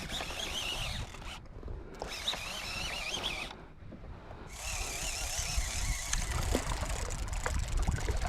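Fishing reel drag squealing in stretches as a hooked striped bass pulls out line, a warbling high whine that comes and goes, over low wind rumble on the microphone.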